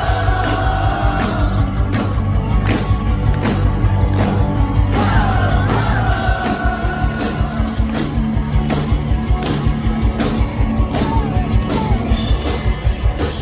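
Live rock band playing loudly, with a sung vocal melody over a steady drum beat, distorted guitars and bass.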